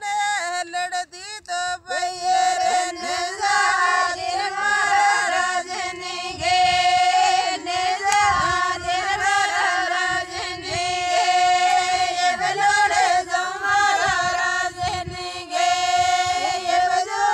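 A group of women singing a Marwari folk song together, with long held, wavering notes.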